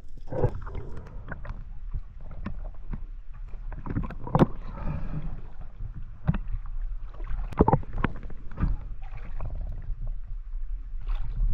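Water sloshing and splashing around a camera held at the waterline, over a steady low rumble, with scattered sharp knocks.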